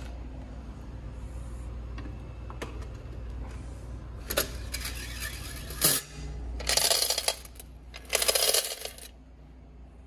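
Coins rattling and sliding in the metal coin box of a toy capsule vending machine as it is handled and tipped. There are scattered clicks and knocks of the machine's parts in the first half, then two spells of dense coin jingling about two-thirds of the way through.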